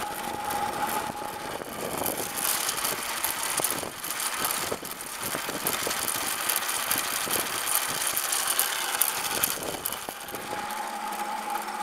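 An electric moped driven by a 24-volt lawn mower motor, ridden on pavement: a steady high motor whine under wind rush on the microphone and road rattle. The whine is clearest at the start and again near the end, and the wind is loudest in the middle.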